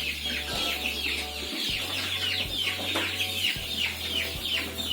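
A flock of young chickens, about 26 days old, cheeping together in their coop: a rapid, unbroken run of short, falling chirps from many birds at once, over a low steady hum that cuts out briefly a few times.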